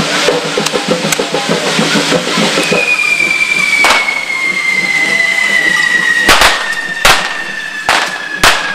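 Handheld fountain fireworks hissing and spraying at a devils' fire run (correfoc), with drumming in the first few seconds. A long whistle then starts, falling slowly in pitch, and about five sharp firecracker bangs go off in the second half.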